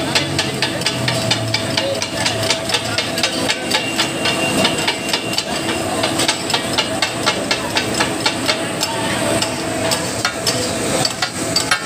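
Steel spatula blades clanging and chopping on a large flat iron griddle as katakat is made: a fast, irregular metallic clatter of many strokes a second. Frying meat hisses underneath.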